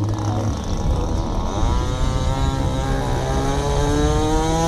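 Small model-airplane engine driving a propeller: it runs roughly, then from about a second and a half in it revs up, its pitch climbing steadily.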